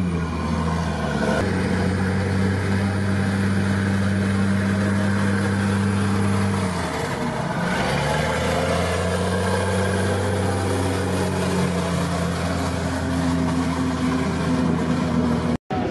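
Stryker eight-wheeled armored vehicle's diesel engine running steadily as it drives slowly past, a low, even hum. About halfway through the tone fades and comes back at a slightly different pitch.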